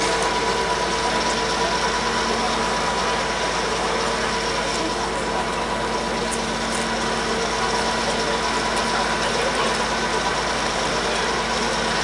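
DR class 120 'Taigatrommel' diesel locomotive (Soviet-built M62) running its two-stroke V12 diesel under power with the brakes held on: a loud, steady racket with a constant hum through it.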